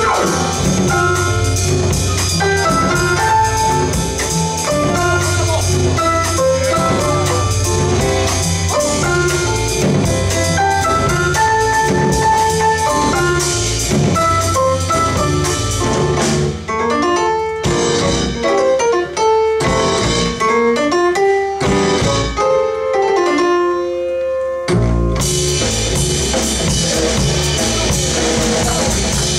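Live jazz band playing: upright bass, drum kit and piano. About halfway through the cymbals and full band drop away to a sparser passage of separate notes, and the whole band comes back in a few seconds before the end.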